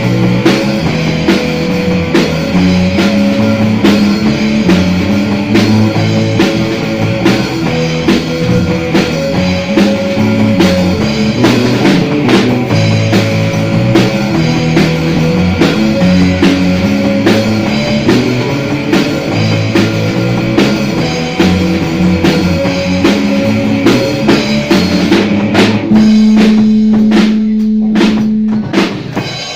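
Rock band playing: a Yamaha drum kit driving a moving line on a Fender Jazz Bass, with an Aria Pro electric guitar. About 26 seconds in the band stops on one long held note while the drums keep hitting.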